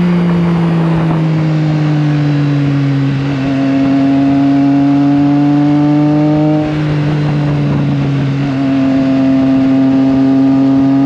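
Triumph Trident 660's three-cylinder engine running at fairly steady revs under way. Its note drifts slowly, with brief dips in loudness about three, six and a half and eight and a half seconds in.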